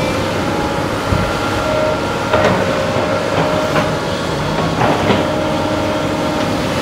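A SANY crawler excavator's diesel engine runs steadily while the machine works. Several sharp metallic clanks and squeals from the machine come over it, the loudest about two and a half and five seconds in.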